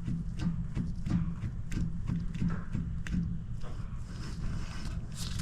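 Newly installed split rear wheel bearing and hub of a BMW E46 M3 clicking and knocking lightly, a few times a second, as the hub is worked in and out by hand. The in-and-out play is what the owner takes for faulty new bearings.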